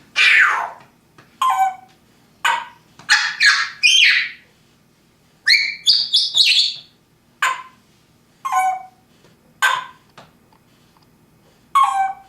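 Pet parrot giving a string of short squawks and whistled chirps: a falling call at the start, two quick clusters in the middle, then single short calls about a second apart.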